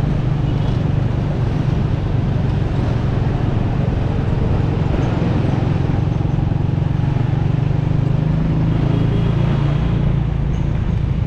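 Motorcycle engine running steadily while riding, heard close up from the handlebars, with street traffic around it.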